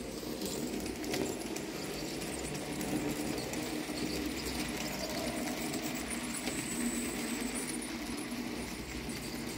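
N-scale model train, a BB304 locomotive on a Fleischmann motor chassis pulling wagons, running on the track: a steady small electric motor whir with the wheels rolling on the rails and a few light clicks.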